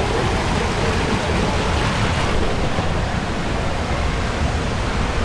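Steady, loud rush of pouring and splashing water, the constant din of an indoor water park.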